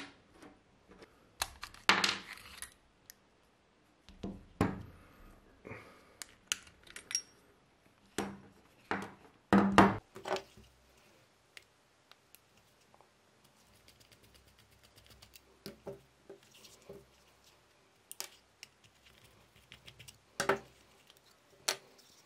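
Steel parts of a 1917 Artillery Luger (Lange Pistole 08) being taken apart by hand and set down on a rubber mat: irregular small metallic clicks, scrapes and clinks, with a few louder knocks spread through.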